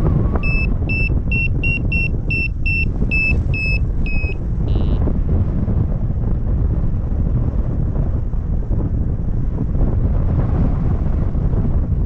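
Paragliding variometer beeping in a quick even series, about three beeps a second, for the first four seconds: the signal that the glider is rising in lift. Heavy wind rush on the microphone runs under it and carries on alone after the beeps stop.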